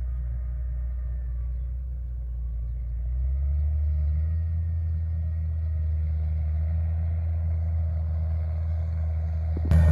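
Distant tractor pulling a seed drill across the field, its engine a low, steady drone that grows a little stronger about three and a half seconds in.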